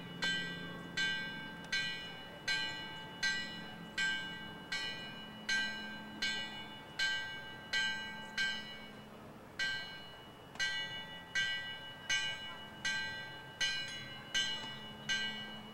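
A bell struck over and over, a little faster than once a second, each strike ringing clearly and fading before the next. There is a short break about eight and a half seconds in, and the strikes after it come less evenly.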